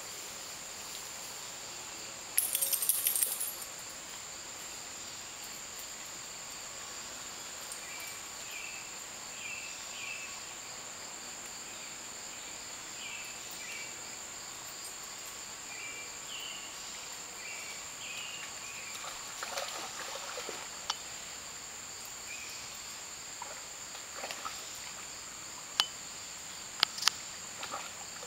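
Steady high-pitched drone of insects singing. A brief loud scratchy noise comes about two and a half seconds in, scattered short chirps come through the middle, and a few sharp clicks come near the end.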